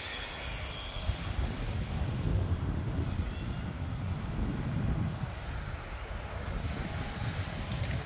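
Low, uneven rumble of wind buffeting the microphone, over faint outdoor road ambience as cyclists pass.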